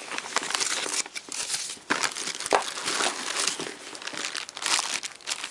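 Clear plastic bags crinkling and rustling as they are handled, in irregular bursts with short sharp crackles.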